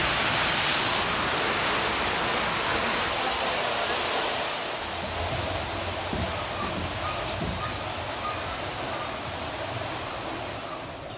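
Steady rushing hiss of falling water from a boat ride's rainforest scene, loudest for the first few seconds, then fading gradually as the boat moves on.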